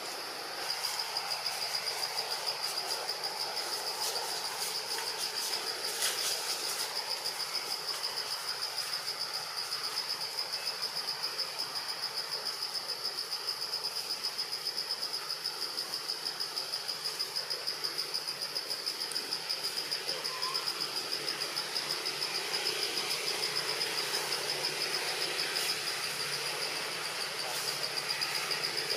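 Insect chorus: a steady, high-pitched whine that starts about a second in and goes on with a fast, even pulse.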